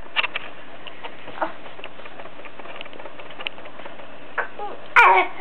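Steady low hiss with scattered faint clicks. Near the end comes a sharp knock, then a baby's short vocal sound gliding up and down, the start of babbling.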